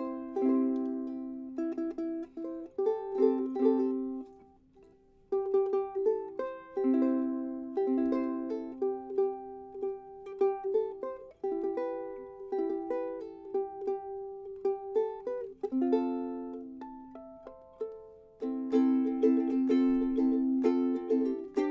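Soprano ukulele with a Hawaiian Cuban mahogany body (a 2023 Pohaku) being played, a tune of chords and single notes, with a short pause about four seconds in.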